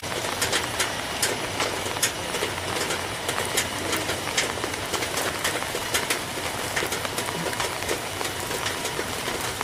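Steady jet noise from a twin-engine Sukhoi Flanker fighter on approach with its landing gear down, with irregular sharp ticks over it, about two or three a second.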